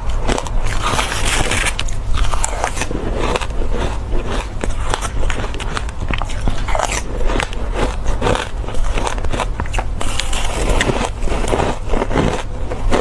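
Close-miked crunching and chewing of powdery shaved ice with passion fruit pulp: a dense, continuous run of crackling bites.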